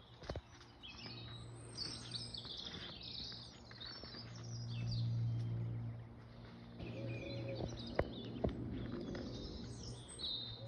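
Small birds chirping and twittering throughout, over a steady low hum, with two sharp clicks about eight seconds in.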